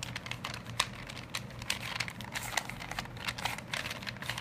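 Rubik's Cube layers being turned quickly by hand: irregular plastic clicks and rattles, several a second, as a move sequence is run through.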